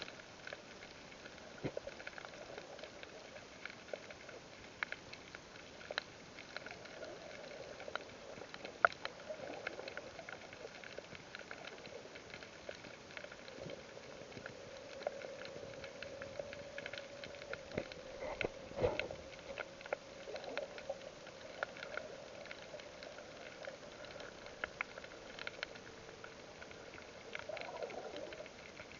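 Underwater sound picked up by an action camera in its waterproof housing: scattered sharp clicks and pops over a steady hiss, with a muffled drone that swells around the middle and near the end. The loudest pop is about nine seconds in, with a cluster of louder knocks a little after halfway.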